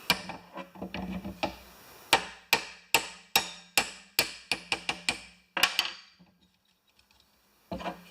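A hammer tapping on a steel mower-deck spindle hub to work it apart: about a dozen sharp metallic taps, two or three a second, each ringing briefly, after some lighter clatter, stopping about six seconds in.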